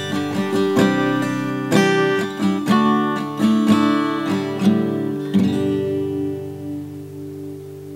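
Outro music on acoustic guitar: a quick run of plucked notes, ending about five seconds in on a chord that rings on and slowly fades.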